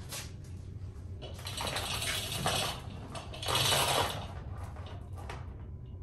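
Steel chain of a manual chain hoist rattling and clinking as its hand chain is pulled. The clatter builds about a second in, is loudest near four seconds and dies away shortly before the end.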